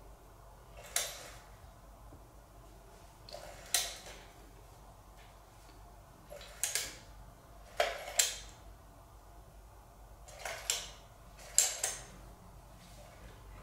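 Irregular sharp clicks and knocks of hard plastic cat toys, an electric feather-wand toy and a plastic ball-track circuit, being batted and bumped by cats. About eight separate knocks, some in quick pairs.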